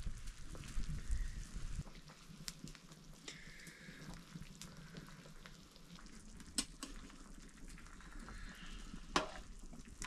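Pork boiling in a large metal pan over an open wood fire, bubbling and sizzling as a ladle stirs it, with a few sharp clicks.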